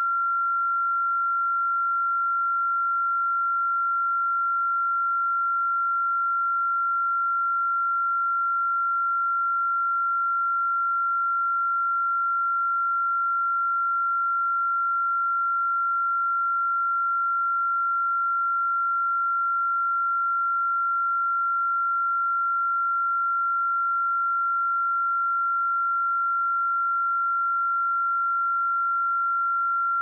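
A steady, unbroken 1373 Hz sine-wave test tone: one pure high-pitched pitch at a constant level.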